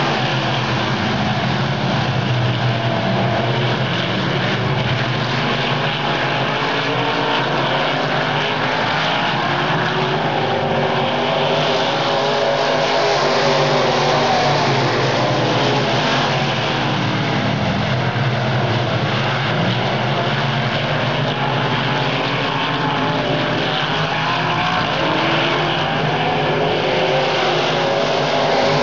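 Several dirt-track race cars running laps together, a continuous loud blend of engines with pitch wavering up and down.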